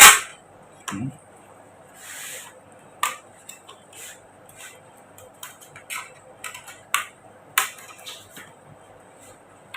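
Plastic snap-fit clips of a laptop's bottom case clicking and popping as the case is pried apart with a flat tool: a sharp snap at the start, then scattered light clicks and a brief scrape about two seconds in.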